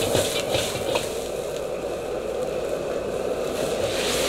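Sliced onions sizzling in a carbon-steel wok over a running gas wok burner, which gives a steady rush under the frying. A metal ladle scrapes and tosses the onions in about the first second, then the sizzle settles to a steadier hiss.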